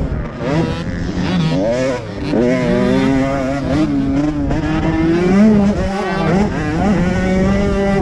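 Motocross bike engine running hard under the rider, its pitch climbing and dropping several times with the throttle and gear changes.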